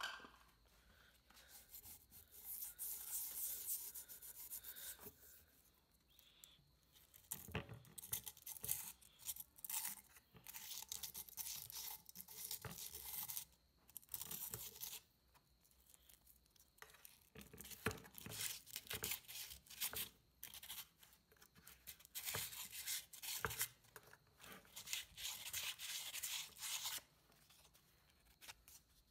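Hand-sanding the metal back plate of a PA horn driver unit with a small piece of sandpaper: scratchy rubbing in runs of quick strokes, with short pauses between the runs.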